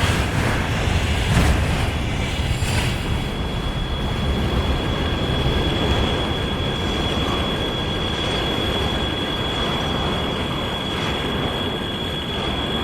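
Train rolling past close by with loud, steady wheel and rail noise, a few knocks in the first three seconds, and a constant high-pitched squeal.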